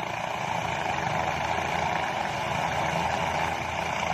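Steady, even engine-like drone with a low rumble and no distinct beats or pitch changes.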